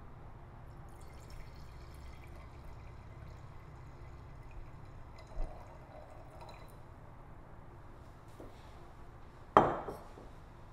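Red wine pouring from a glass bottle into a wine glass, faint, then the bottle set down on the counter with one sharp clunk near the end.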